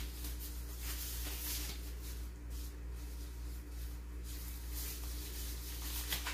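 Quiet kitchen room tone: a steady low electrical hum, with faint soft rustles of disposable plastic gloves being handled and pulled on.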